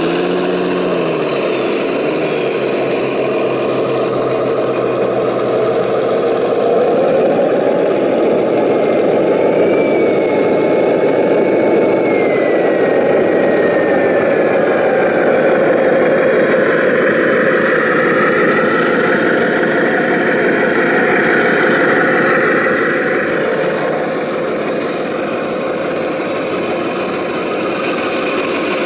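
Radio-controlled scale trucks running, with a diesel-style engine sound idling and revving under load. A high electric drive whine slides down in pitch about a third of the way in, and another whine holds for several seconds after the middle.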